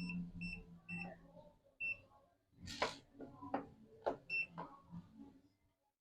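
Short high electronic beeps from a digital multimeter being set up for a voltage check: four in the first two seconds and one more about four and a half seconds in, with several sharp clicks and taps of handling between them.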